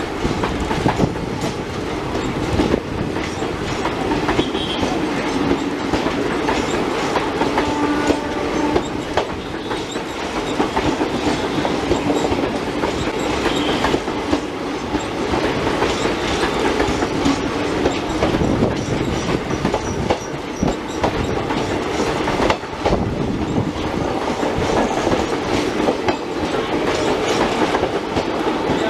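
Vibhuti Express passenger train running past, its wheels clattering over the rail joints in a steady clickety-clack.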